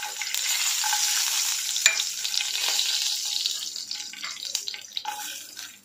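Cashew nuts sizzling in hot oil in a kadai: a steady frying hiss that fades over the last couple of seconds, with one sharp click about two seconds in.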